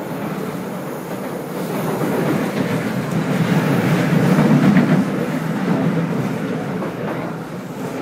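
Running noise of an SMRT C751B metro train heard from inside the car: a steady rumble of steel wheels on rail that grows louder to a peak about four to five seconds in, then eases off.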